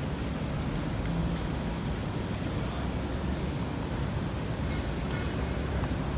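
Steady low rumble of ferry engines with a noisy wash of churning harbour water over it.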